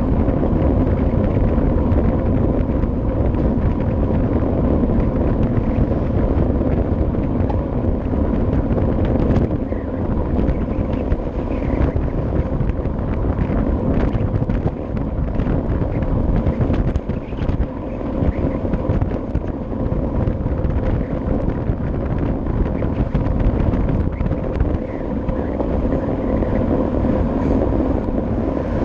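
Wind rushing and buffeting over a cycling camera's microphone while riding a road bike at speed, with tyre and road rumble beneath.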